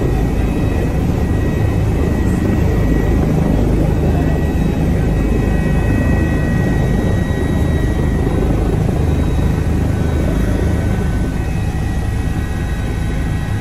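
Airbus H145 helicopter's rotor and turbine engines heard from inside the cockpit as it lifts off a ship's helideck and climbs away: a loud, steady low rumble with a faint high whine above it.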